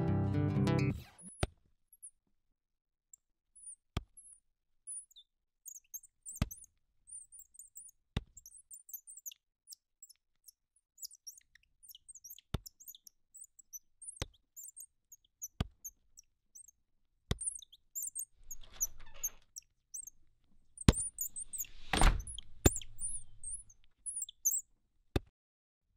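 Birds chirping in short high calls, with a sharp click every couple of seconds. A rustle about three-quarters of the way through, then a loud thump.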